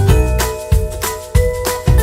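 Upbeat background music with a steady beat, bass notes and bright pitched melody tones.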